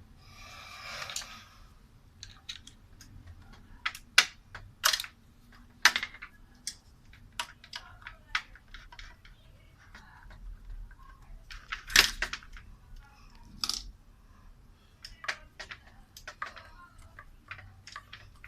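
Irregular clicks and taps of hand tools and small metal parts on an electric fan being taken apart, as a retaining pin is worked out. A brief scraping rustle about a second in, then sharp clicks, the loudest three scattered through the middle.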